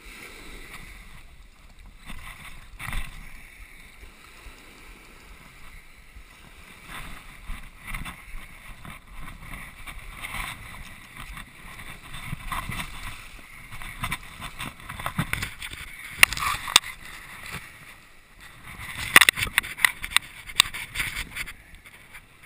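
Waves washing on the beach and wind rushing on the microphone. Near the end come bursts of sharp knocks and rustles as the catch is handled close to the camera.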